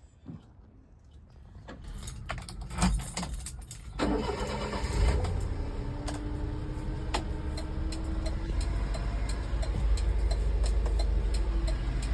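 Honda Acty kei truck's small engine starting: a few clicks, then about four seconds in the engine catches and runs steadily with a low rumble.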